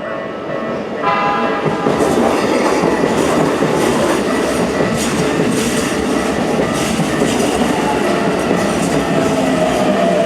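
Level-crossing warning bell ringing, then a Keikyu train passing over the crossing from about a second in, wheels clacking over the rail joints.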